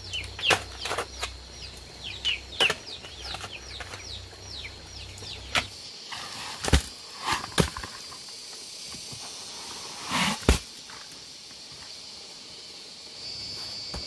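Chickens calling with quick, repeated short falling peeps through the first half, over a steady high hum in the second half. Several sharp knocks cut through, the loudest about half a second in, near seven seconds and about ten and a half seconds in.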